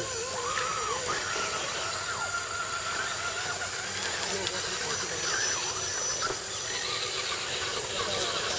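Whine of a scale RC crawler's electric motor and drivetrain, its pitch rising and falling with the throttle as the truck crawls through mud.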